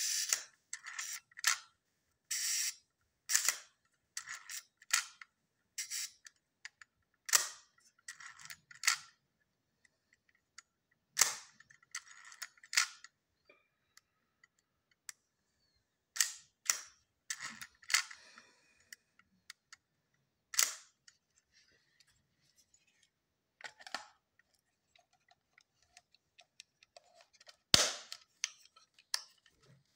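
FED-3 rangefinder camera being worked by hand: its focal-plane shutter firing and its top-plate controls clicking, in a string of sharp mechanical clicks at irregular intervals. The loudest click comes near the end.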